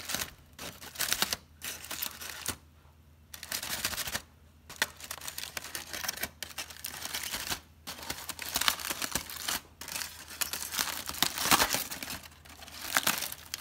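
Aluminium foil crinkling and rustling in irregular bursts, with short pauses, as a foil parcel of baked fish is pulled open.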